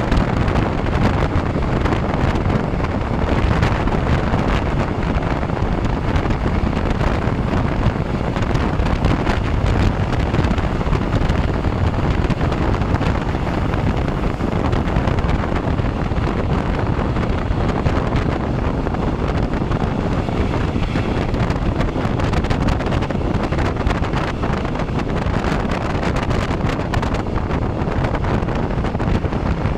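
Steady wind rushing and buffeting over the microphone at the open window of a moving regional express passenger train, mixed with the low rumble of the train running along the track.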